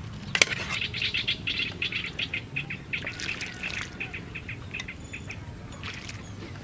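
Small birds chirping in a rapid run of short, high calls, with a single sharp click about half a second in.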